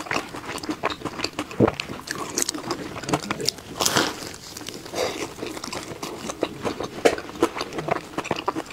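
Close-miked biting and chewing of a crisp pastry, its crust crunching and crackling in quick irregular clicks. The largest crunchy bite comes about four seconds in.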